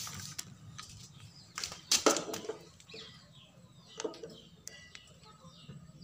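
Metal hand tools clattering as they are rummaged in a tool box, with a few sharp clinks, the loudest about two seconds in. Near the end come lighter metal clicks as pliers are set on a nut on the amplifier's metal case.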